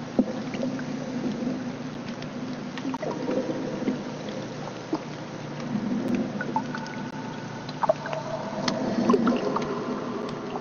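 Underwater sound picked up by a hydrophone: a steady low hum with scattered sharp clicks and crackles, and a few held tones about two thirds of the way through.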